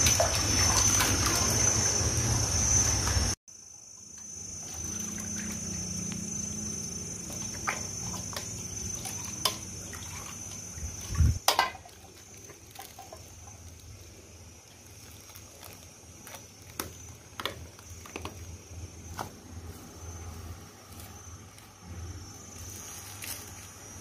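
Warm liquid seaweed jelly being poured from a plastic cup into small plastic bags, with scattered crinkles and clicks of the bags and cup being handled. A louder stretch in the first three seconds or so stops suddenly, and a thin steady high-pitched whine runs underneath.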